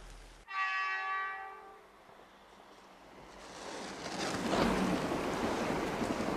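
A single bright bell-like chime strikes about half a second in and dies away over a second or so. Then the rushing of an E6 series Shinkansen passing at speed through snow swells up from about four seconds in and stays loud.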